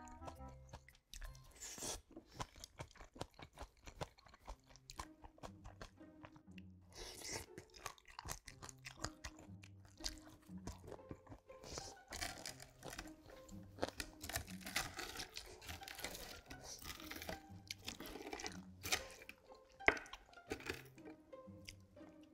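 Close-miked chewing and crunching of food, with many short sharp clicks, busiest in the second half.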